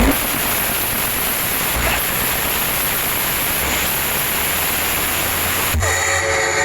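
Loud, steady rushing noise, like pink noise, played through a large outdoor sound system, with a short buzzing tone near the end.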